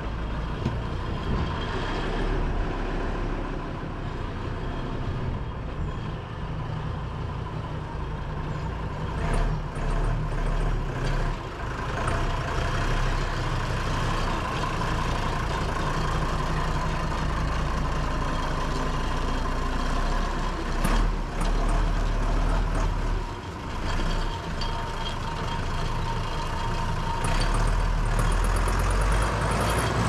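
Deutz DX 90 tractor's air-cooled six-cylinder diesel engine running steadily as the tractor drives slowly, its level rising and falling a little.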